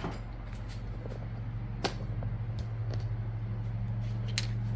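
A steady low hum, a little louder after about two seconds, with a few sharp light clicks of small metal parts or tools being handled.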